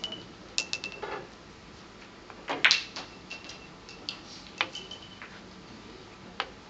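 Billiard balls clicking against each other and the cushions during keglebillard play: a series of sharp clicks, several with a short ring, the loudest about two and a half seconds in.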